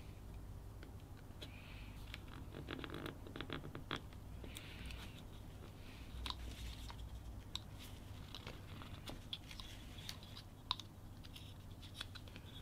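Whittling knife cutting into a small wooden carving: irregular short scraping slices and small clicks, with a quick run of cuts about three seconds in, over a low steady hum.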